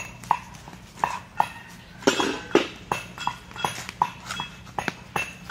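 Fish being cut up on a boti, the upright curved blade of a Bengali kitchen, and scaled by hand: irregular sharp knocks and light metallic clinks, about two or three a second.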